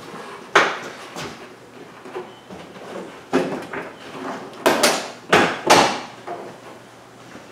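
Plastic front bumper cover of a 2016 Toyota RAV4 being pushed and knocked into place by hand: sharp plastic knocks and clunks, one about half a second in, then a quick run of four close together a little past the middle.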